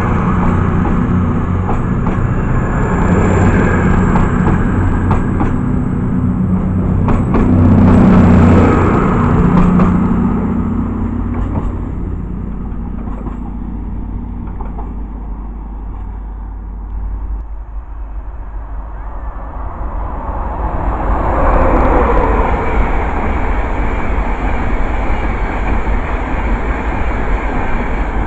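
Diesel multiple unit's engines running as the train moves off along the platform: a loud, steady engine note that fades away after about ten seconds. Then a second passenger train approaches and rushes past at speed, with a swell of wheel and air noise peaking about two-thirds of the way in.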